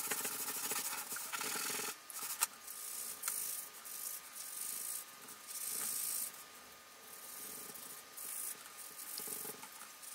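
A scouring sponge scrubbing a rusty steel bracket soaked in Coca-Cola: scratchy rubbing in strokes of a second or two, with short pauses between them.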